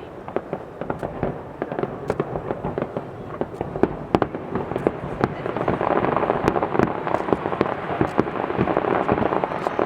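Fireworks display crackling with many rapid sharp pops, growing denser and louder about six seconds in.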